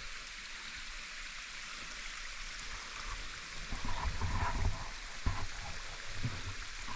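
Waterfall on a mountain stream: an even rush of falling water, with a few low bumps partway through.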